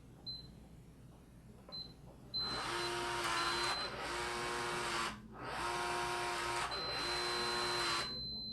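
Schlage Connect touchscreen deadbolt: two short high keypad beeps as the user code is entered, then the lock's electric bolt motor whirring in four runs of about a second each. A long high beep starts near the end. This is the lock operating incorrectly, the sign that it needs a factory reset.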